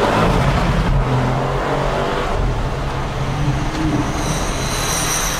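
Audi RS6 Avant's twin-turbo V8 engine running at a steady, even pitch while the car drives along.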